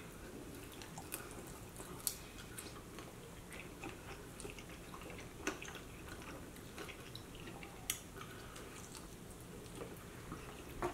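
Faint chewing and biting on chicken wings, with scattered small sharp mouth clicks, the clearest about two seconds in and again near eight seconds.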